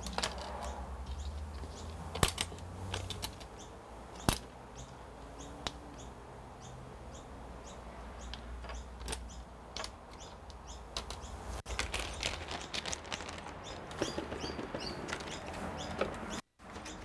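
Scattered computer keyboard and mouse clicks at irregular intervals, over a low steady hum.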